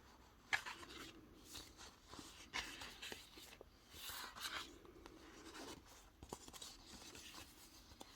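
Faint rustling and crinkling of paper and plastic packaging as sticker sheets are handled, with scattered light clicks.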